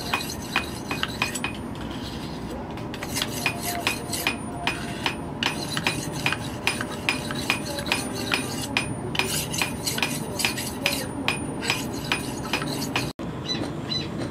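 Light metal-on-metal taps, likely a small hammer striking steel, in a steady run of about two to three strikes a second, each with a brief bright ring.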